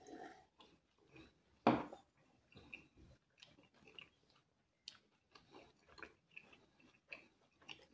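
A person sipping from a glass and then chewing pizza crust close to the microphone, with small irregular crunchy and wet mouth sounds. A single short knock, the loudest sound, comes a little under two seconds in.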